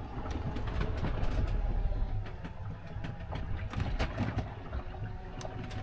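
Cabin of a 1978 Nicholson 35 sailboat under way: a steady low rumble of the hull moving through the water, with scattered creaks and knocks from the boat.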